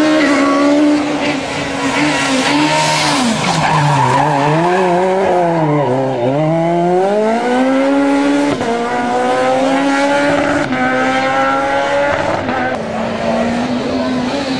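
Rally car engines at high revs. About four seconds in the revs drop as a car brakes and changes down for a tight bend, then they climb again in several steps as it accelerates away through the gears.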